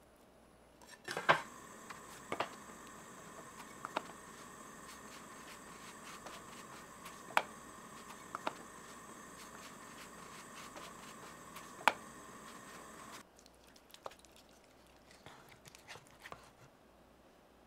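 Steady hiss of a portable gas burner heating a pita bread in a nonstick pan, with sharp clicks and knocks as the hand presses the bread and the pan is touched; the loudest click comes about a second in as the hiss starts. The hiss cuts off suddenly, leaving soft clicks and scrapes of a wooden spoon in thick tomato sauce.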